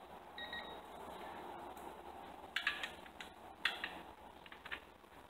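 A digital torque wrench gives a short, faint beep about half a second in, the signal that it has reached its set torque on an intake manifold bolt. Several sharp clicks of the wrench and socket working follow around the middle and are the loudest sounds.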